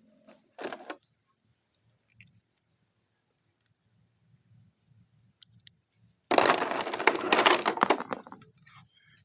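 Plastic toy packaging being handled: a brief rustle under a second in, then a couple of seconds of dense crinkling and crackling.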